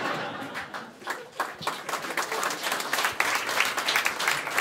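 Audience applauding a roast joke, many hands clapping, the clapping growing thicker about a second in.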